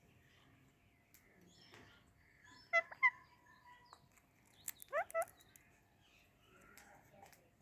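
Pet Psittacula parakeets (Indian ringneck or Alexandrine) calling: two short, sharp chirps about three seconds in, then a quick run of rising squawks a little after five seconds, with soft quiet chatter in between.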